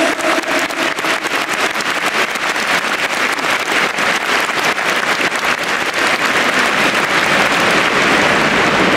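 Large stadium crowd applauding, with many hands clapping in a dense, steady patter that swells slightly in the last few seconds.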